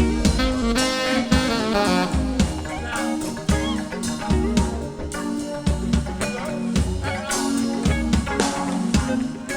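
Live band playing an instrumental passage: guitar lines with bending notes over bass and drums, in a blues vein.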